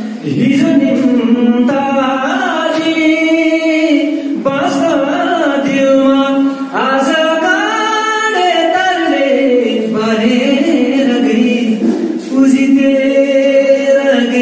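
A man singing a slow melody, holding long notes that slide up and down in pitch, with short breaks between phrases.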